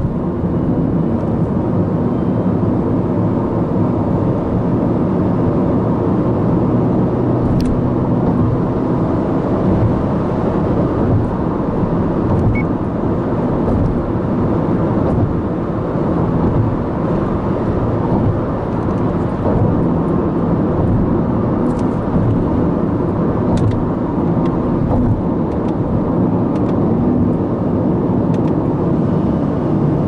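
Steady road and engine noise heard inside the cabin of a Subaru Impreza Sport 1.6i-L with its FB16 flat-four engine, cruising at road speed.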